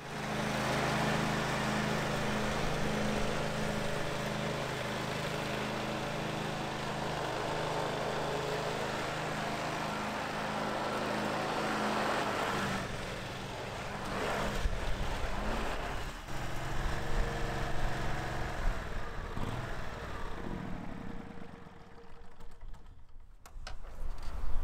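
Engine of a Stiga ride-on lawn mower running on fresh oil and a new oil filter, a test run after the oil change. It runs steadily for about 13 seconds, then the sound changes and fades out near the end.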